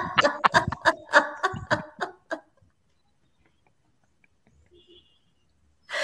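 A person laughing in quick bursts for about two seconds, then the sound cuts out to near silence.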